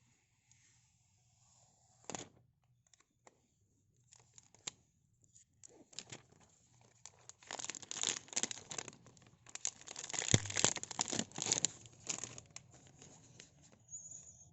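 Packaging being torn open and crinkled by hand during an unboxing. A sharp click comes about two seconds in, then scattered crackles build into a dense run of tearing and crinkling in the middle, tapering off near the end.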